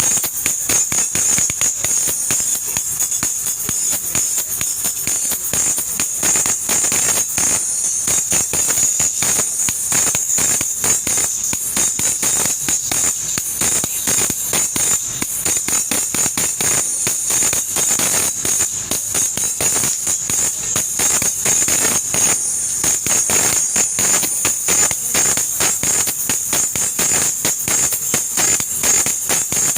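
Recorded music played loud and steady through a Kevler amplifier and speakers during a sound check, with a dense, fast beat and a constant bright shimmer in the treble.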